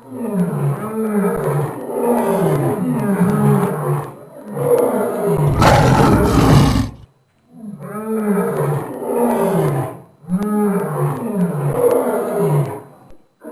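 Lion roaring: bouts of short, deep calls in quick succession, several a second, separated by brief pauses, with a louder, harsher roar around the middle.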